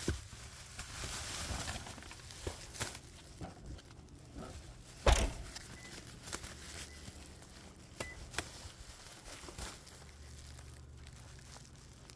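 Rustling and crinkling with scattered knocks, and one loud thump about five seconds in.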